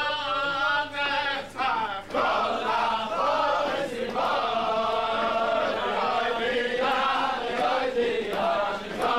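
Hasidic men singing together in unison, one voice leading at first and many more joining in about two seconds in.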